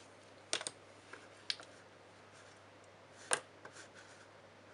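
A handful of light, sharp clicks and taps over faint room hiss, the loudest about three seconds in: pencils and an eraser being picked up and set down on a desk.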